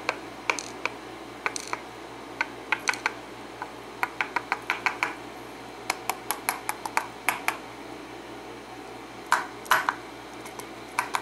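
Brass pin-tumbler lock plug being tapped and shaken over a pinning tray to dump out its pins and springs: irregular runs of small sharp metallic clicks and taps, the loudest few a little after nine seconds.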